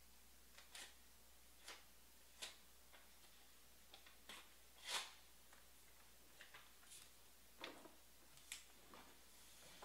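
Near silence broken by faint, irregular clicks and taps, about a dozen of them, the loudest about five seconds in.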